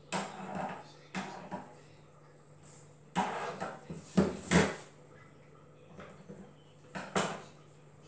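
Rustling and scraping of a woven water-hyacinth basket panel handled and laid down on a wooden worktop, in several short bursts, the loudest about four and a half seconds in, over a faint steady low hum.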